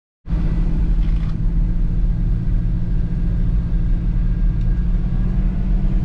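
A car driving along a road, heard from inside the cabin: a steady low rumble of engine and road noise that starts abruptly just after the beginning.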